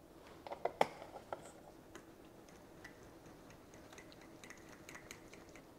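Pancake batter being stirred in a bowl, the utensil giving faint quick clicks and taps against the bowl, with a few sharper taps in the first second and a half.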